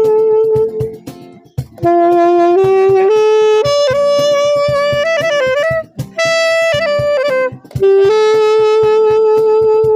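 Saxophone playing a slow melody in phrases of long held notes, over a strummed guitar accompaniment; after two short breaks, the last phrase settles on one long held note.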